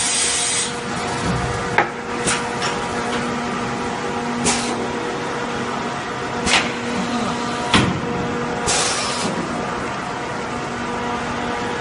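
Semi-automatic 5-gallon bottle blow-moulding machine: compressed air hissing, cutting off under a second in, then a steady machine hum broken by about five sharp clicks and knocks. A second short burst of air hiss comes about nine seconds in.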